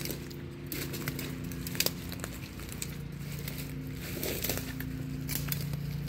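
Footsteps crunching through dry leaf litter and twigs on the forest floor, an irregular series of crackles, over a steady low hum.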